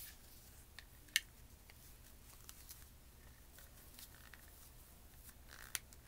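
A few sharp clicks and light ticks from an empty plastic travel hand sanitizer bottle and its holder being handled, one loud click about a second in and another near the end, over a faint steady hum.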